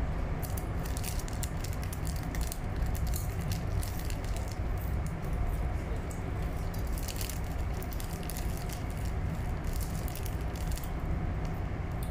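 Crinkling of a plastic snack bag and crunching of snacks being eaten, in irregular clusters of crackles, over a steady low hum inside a train carriage.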